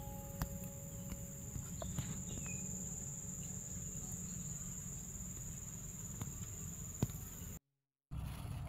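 An insect trilling, one continuous high steady note, over low outdoor rumble and a few faint clicks; it cuts off abruptly near the end.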